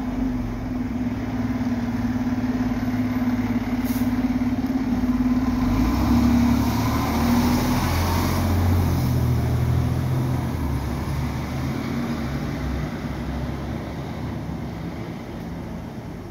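Diesel engine of a 2022 Sutphen Monarch fire engine pulling out and driving past, building to its loudest about six to eight seconds in as it passes, then fading steadily as it moves away.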